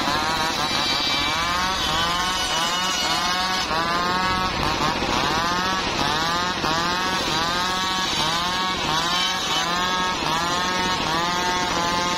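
A large homemade engine-driven circular saw rips a wooden plank lengthwise over a steady engine drone. The blade's whine drops in pitch over and over, roughly every three-quarters of a second, as it cuts.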